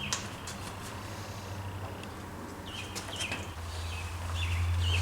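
Low, steady rumble of a passing coal train, growing louder in the last second or so, with birds chirping briefly several times over it.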